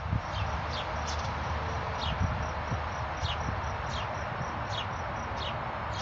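Small birds chirping: short, high chirps that slide downward, repeated irregularly about ten times. Under them is a steady, high pulsing insect trill and a low rumbling background noise.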